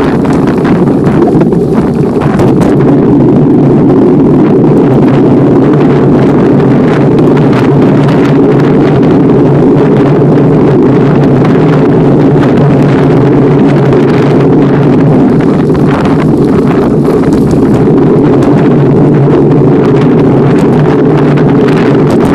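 Loud, steady wind rumble buffeting the microphone of a handlebar-mounted camera on a moving bicycle.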